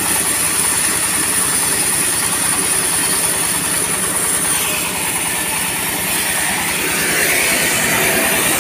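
Stationary diesel engine driving a sawmill, running steadily with a rapid, even beat, under a steady high whine.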